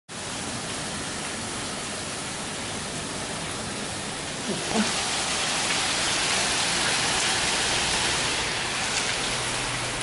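Heavy rain pouring steadily onto a paved patio and lawn, growing louder about halfway through.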